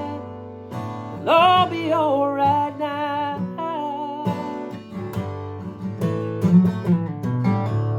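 Acoustic guitar with a singer holding a long, wavering note from about a second in, then the guitar playing on alone as the song draws to its close.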